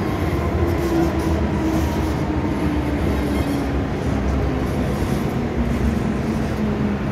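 MTR Island Line M-Train heard from inside the car, running into a station platform: a steady rumble of wheels on rail with a faint motor whine that falls gently in pitch as the train slows.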